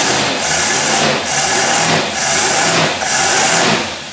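Engine running on a test stand with a Rochester two-barrel marine carburetor, blipped repeatedly by hand at the throttle. There are about four surges a little under a second apart, with a loud rush of intake air, and it settles lower near the end. The carburetor takes the throttle without stumbling.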